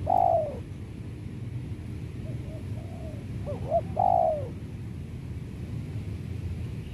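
Spotted dove (tekukur) cooing. One phrase ends just as the sound begins. A second full phrase comes about two to four and a half seconds in: a few soft low notes, then a short sharp note, then a loud, drawn-out coo that falls away at the end.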